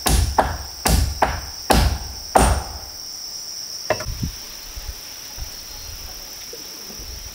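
Six sharp blows of a hand tool on wood in the first two and a half seconds, with one more about four seconds in. A steady high drone of insects runs underneath.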